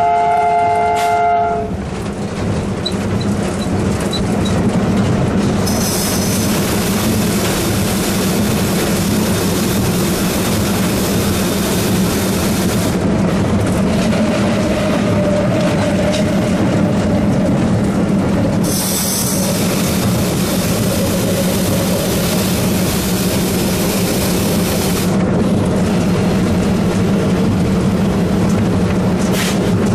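Cab of a WDM-2A diesel-electric locomotive, its ALCO 251 V16 diesel running with a steady drone; the horn cuts off about a second and a half in. Twice a loud hiss of air starts and stops abruptly, each lasting about seven seconds, as the loco pilot works the air brake valve during a brake application.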